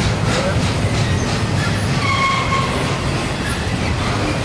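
Double-stack container train's well cars rolling past: a steady rumble and clatter of steel wheels on the rails.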